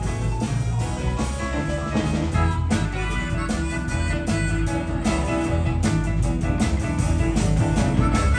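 Live blues-rock band playing: harmonica played into a vocal microphone over electric guitars, electric bass and a drum kit.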